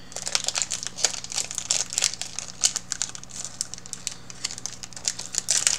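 Foil wrapper of a Yu-Gi-Oh booster pack crinkling as it is handled and opened: a continuous run of irregular crackles.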